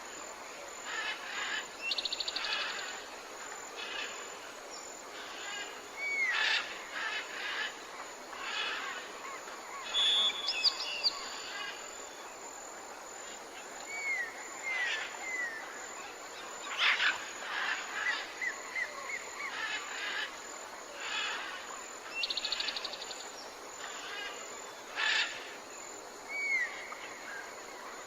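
Several birds chirping and calling: many short chirps, a few falling whistled notes, and a rapid buzzy trill heard twice, over a steady faint background hiss.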